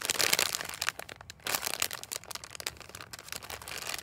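Clear plastic packaging bag crinkling and crackling as hands squeeze and turn a foam bread squishy inside it. Loudest in the first half second, with another burst about one and a half seconds in.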